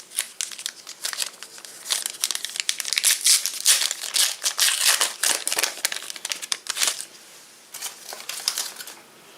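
Plastic trading-card pack wrapper crinkling as it is handled and torn open, in dense irregular crackles that are loudest in the middle and thin out near the end.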